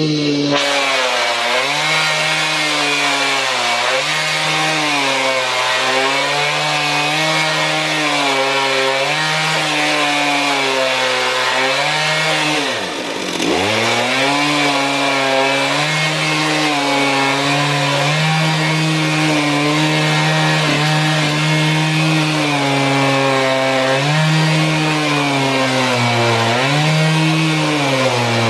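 Two-stroke chainsaw mounted on a homemade chainsaw mill, running at high revs under load while ripping a log lengthwise, its pitch wavering up and down every couple of seconds. Near the middle the revs dip sharply for a moment, then pick back up.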